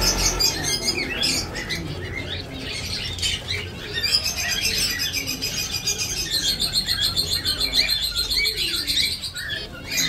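A flock of caged zebra finches chirping and calling, many short high notes overlapping, with a fast run of rapidly repeated high calls from about four seconds in; wings flutter as birds move about.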